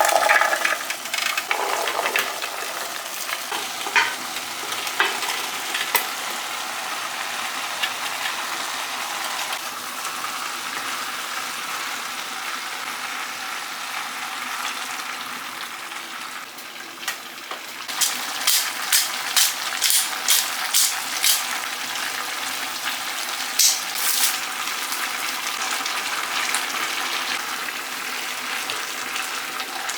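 Food sizzling and frying in a hot pan, loudest right at the start. About two-thirds of the way through comes a quick run of about eight sharp clicks, with a few more soon after, as a utensil stirs and taps against the pan.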